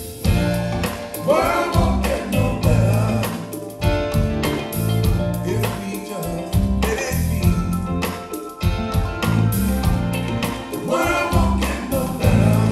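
A song with a singer, deep bass and drums, played back through an L-Acoustics Syva column loudspeaker system with Syva Low and Syva Sub bass units in a large hall.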